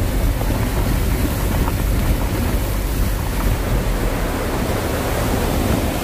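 Rain-swollen mountain stream rushing over rocks in white-water rapids: a steady, unbroken rush of churning water.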